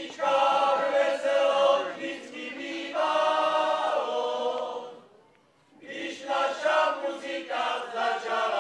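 A group of voices singing a folk song together in long held phrases, pausing briefly about five seconds in before the next phrase.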